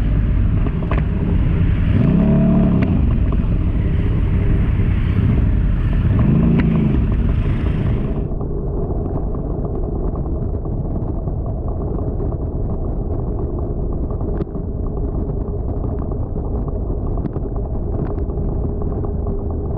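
A motor vehicle's engine running while on the move, with a steady noisy background. The engine pitch rises and falls twice in the first half. About eight seconds in, the sound abruptly turns duller.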